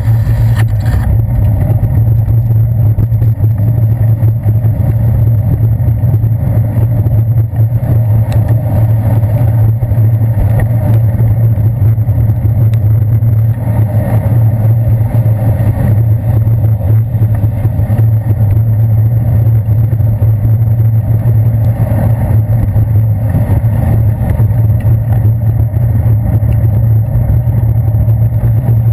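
Steady low rumble of road and engine noise from heavy city traffic, picked up by a GoPro Hero 2 on a bicycle's handlebars while riding among cars and buses on wet streets. It is loud and muffled, with little treble and no single event standing out.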